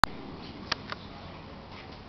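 Faint room hiss, with a sharp click right at the start and two short clicks a little before a second in.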